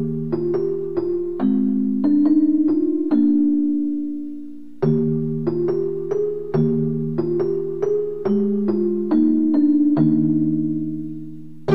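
Background music: a keyboard melody of struck notes over lower held tones. The phrase dies away, then starts again about five seconds in.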